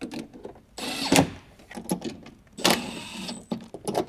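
Plastic door parts scraping and clicking against the steel inner door of a VW Passat B5 as they are fitted back in: a few short bursts of handling noise, with a sharp click about a second in.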